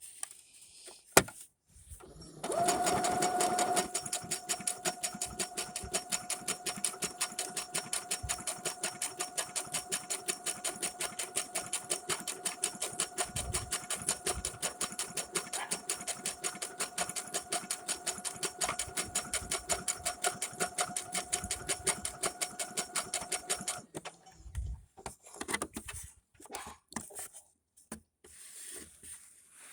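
Brother SQ9185 sewing machine stitching a monogram: motor whine with a fast, even beat of needle strokes, several a second, starting about two seconds in and stopping a few seconds before the end. Scattered light clicks follow once it stops.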